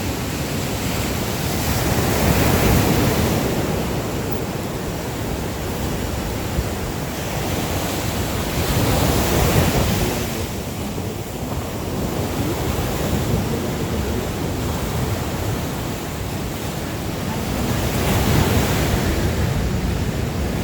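Ocean surf breaking on a sandy beach: a steady wash of waves that swells louder every seven or eight seconds, with some wind buffeting the microphone.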